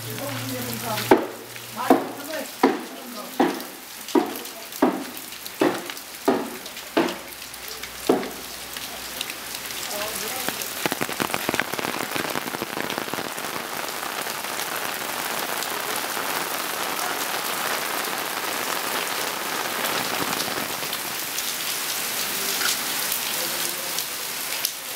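Footsteps, about ten steady steps over the first eight seconds, then rain falling steadily, growing heavier toward the end, heard under an umbrella.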